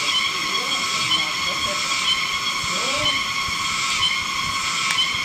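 A loud, steady chorus of forest insects: a dense, high, ringing buzz of many layered tones with a faint pulse about once a second.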